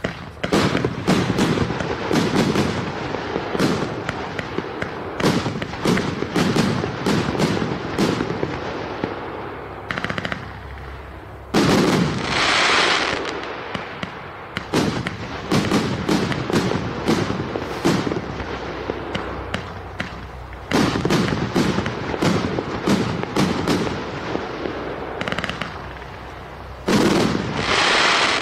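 A 1.2-inch 49-shot fan consumer cake firework firing its tubes in quick succession, about two sharp reports a second, with crackling noise between them. About halfway through and again near the end come longer, louder rushes of noise.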